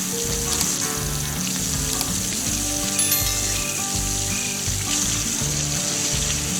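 Background music with a tune of held notes over a steady hiss.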